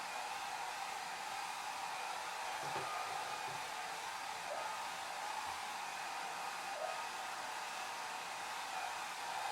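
Hair dryer blowing steadily: an even, unchanging rush of air noise, strongest in the upper range, with faint steady tones running through it.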